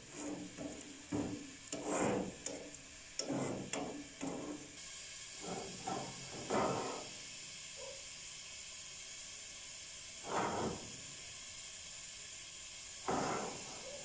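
A metal rod scraping and clanking against round metal baking pans as they are dragged out across the oven's metal floor, with a quick run of knocks and scrapes in the first seven seconds and two more scrapes later. A steady hiss lies under it all.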